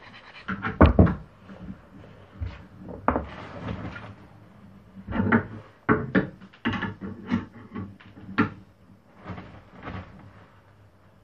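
Small wooden blocks and parts clacking and knocking as they are handled and set down on a wooden workbench, irregular knocks with the loudest about a second in, and a short scraping rub around three seconds in.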